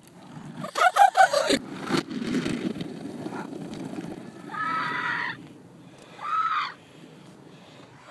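Children calling out: a burst of short shouts about a second in, then two separate held calls later on. A low rumble from a plastic ride-on cart rolling over grass runs between them.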